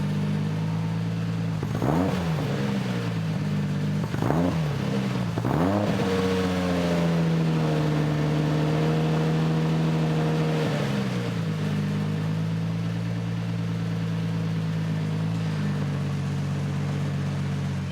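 Lexus SC300's inline-six engine idling and being revved: three short blips in the first six seconds, then held at raised revs for about five seconds before dropping back to a steady idle.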